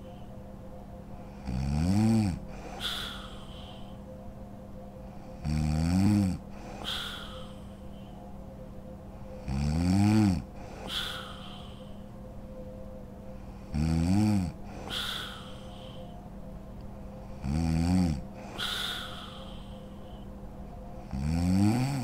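A sleeping woman snoring in a steady rhythm: six snores about four seconds apart, each lasting about a second with a pitch that rises then falls. Each snore is followed about a second later by a shorter, softer breath.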